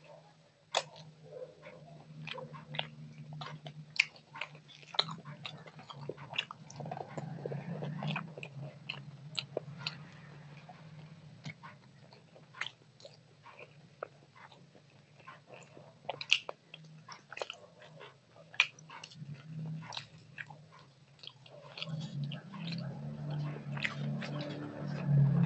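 Eating by hand close to a clip-on microphone: fingers mixing rice and curry on a metal plate, with many small sharp clicks and wet sounds, and chewing that grows louder near the end.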